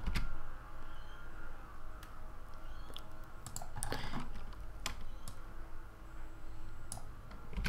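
Computer keyboard and mouse clicks: a handful of scattered sharp taps, spaced irregularly, over a low steady hum.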